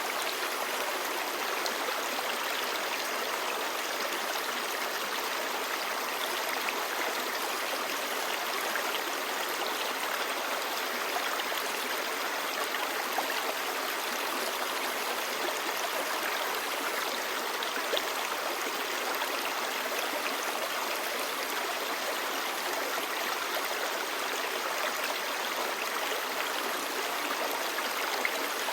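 Clear stream babbling steadily, an even rush of running water with no let-up.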